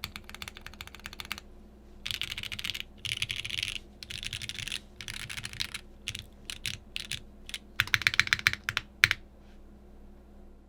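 Typing on a custom polycarbonate Bakeneko60 mechanical keyboard with lubed Gateron CJ linear switches and GMK keycaps, in quick bursts of keystrokes with short pauses between. The typing stops a little after nine seconds in, just after one louder keystroke.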